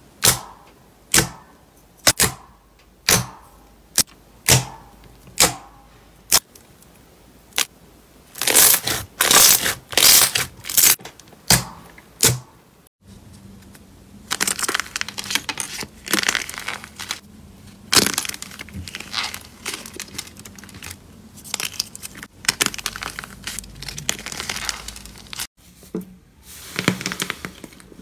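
Hand pressing glossy slime, making sharp pops about once a second that grow louder and denser, as air pockets burst. Then steady crackling and crunching as a slime heart with a crisp outer skin is squeezed and its shell breaks.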